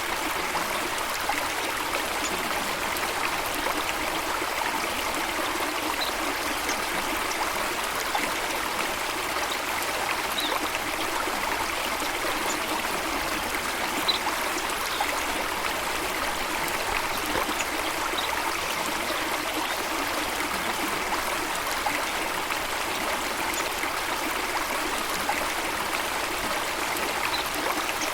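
Running water flowing steadily, like a stream tumbling over rocks. A few faint, short, high bird chirps now and then.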